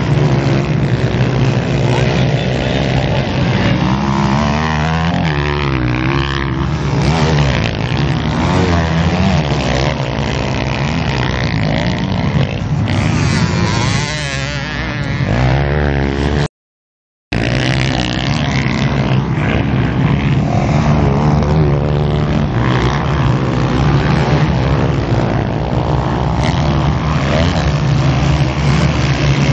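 Motocross dirt bike engines revving hard and dropping back as the bikes race past, the pitch rising and falling with each throttle change. A little past halfway the sound cuts out completely for under a second.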